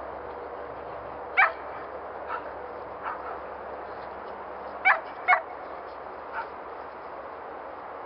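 Shetland sheepdog barking: three sharp, loud barks, one about a second and a half in and two close together just before the middle, with a few fainter yips between them.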